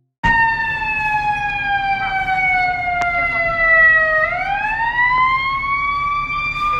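Emergency vehicle siren wailing: one pitched tone that starts suddenly, slides slowly down for about four seconds, then climbs again.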